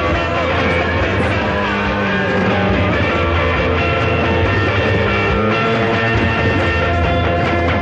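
Post-punk rock band recording playing an instrumental stretch with guitar to the fore and no singing, at a steady loud level.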